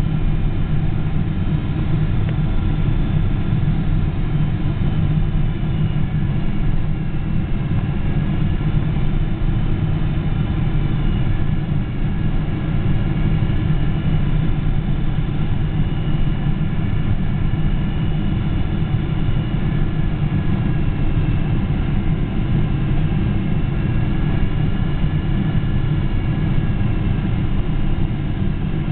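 Boeing 777 cabin noise on the approach to landing: a steady deep rumble of engines and airflow heard from inside the cabin, with faint high engine whines that slowly waver in pitch.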